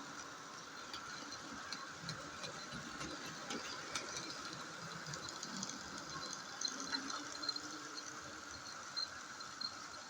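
Hornby class 56 OO gauge model locomotive running slowly on its track: a steady small-motor whir with light, irregular clicks from the wheels and track.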